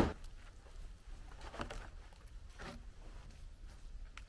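A heavy thud right at the start as a squared log is tipped and set down, then a few faint scuffs and shuffles of handling it.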